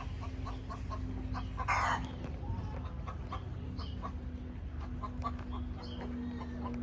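Chickens clucking, many short calls one after another, with one louder squawk about two seconds in.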